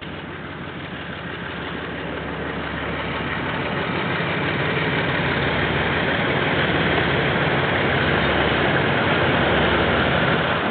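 KiwiRail diesel locomotive engine running as a train approaches, growing louder over the first few seconds and then holding steady.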